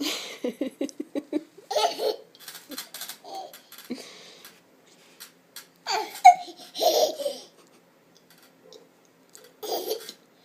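Toddler laughing in bursts after a peekaboo "boo", opening with a quick run of rapid laughs, then several shorter outbursts. The loudest is a brief sharp one about six seconds in.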